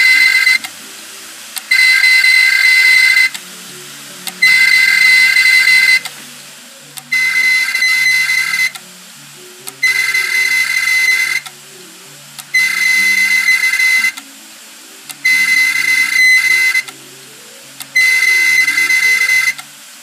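Seagate Barracuda 1.5 TB 7200 RPM hard drive, running with its cover off, screeching: a high-pitched squeal in repeated bursts about a second and a half long, coming back roughly every two and three-quarter seconds. It is the failure noise of a dead drive that had started clicking, which the owner takes as a sign its data is gone.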